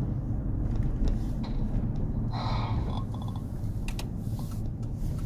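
Steady low rumble of a moving car heard from inside the cabin, with a short breathy noise a little past the middle.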